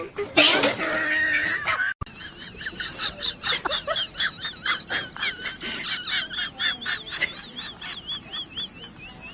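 Animal sounds: after a cut, many short, high-pitched squeaking chirps, several a second, each rising and falling in pitch. They settle into a steadier repeated call toward the end.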